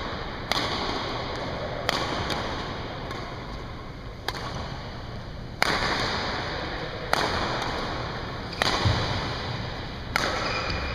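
Badminton rackets striking a shuttlecock during a rally: seven sharp cracks about a second and a half apart.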